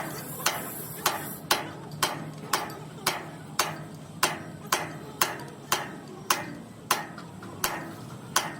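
Repeated hammer blows on metal, evenly spaced at about two a second, each strike ringing briefly.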